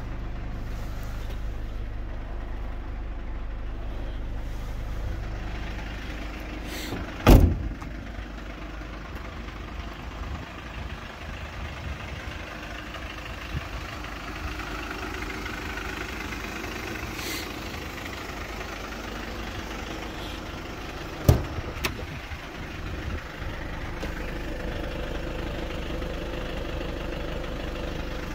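Mercedes Sprinter 313 CDI's four-cylinder diesel engine idling steadily. A van door shuts with a thud about seven seconds in and another about 21 seconds in, followed by a few lighter knocks.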